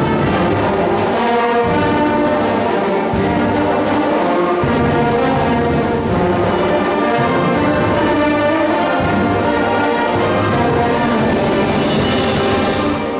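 School concert band playing a full-ensemble passage, with brass (trombones, trumpets and horns) to the fore over woodwinds and low brass, sustained and steady in loudness.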